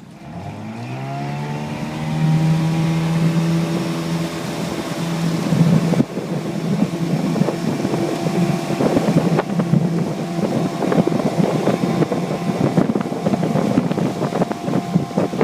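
Mariner 15 hp outboard motor on a jon boat revving up over the first second or so, then running steady under way. From about six seconds in, many irregular knocks join the engine.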